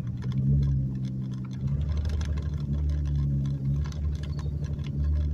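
Car engine running with a steady low hum, heard from inside the cabin, with light ticking over it.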